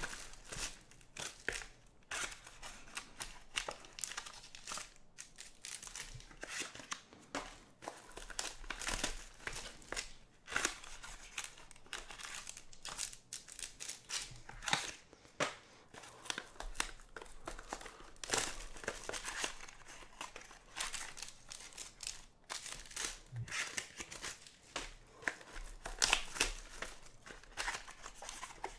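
Foil trading-card pack wrappers of 2022 Bowman Sterling crinkling and tearing open, with a small cardboard box being handled, in irregular crackling strokes throughout.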